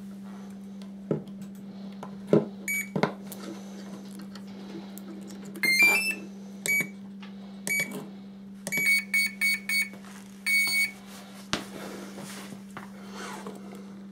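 Battery leads clicked into place, then a string of short high electronic beeps from a battery voltage meter's buzzer as its buttons are pressed. The beeps include a quick rising three-note chirp, single beeps, a run of four, and one longer beep. A steady low hum runs underneath.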